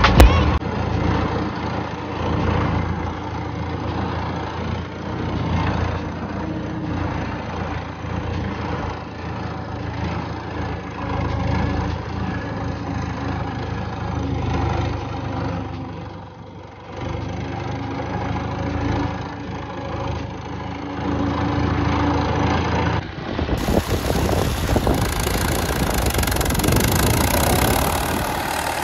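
An old Belarus tractor's diesel engine running steadily as the tractor drives over a field, heard from the driver's seat, with a brief dip in level about two-thirds of the way through. About 23 seconds in, the sound switches to the same engine heard from beside the tractor as it pulls a seed drill.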